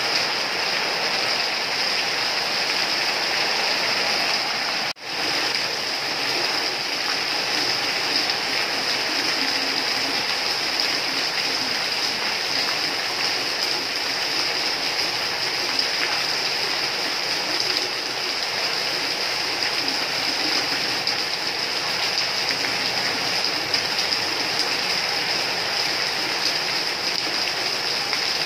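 Steady heavy rain, a dense even hiss of falling water that drops out for an instant about five seconds in.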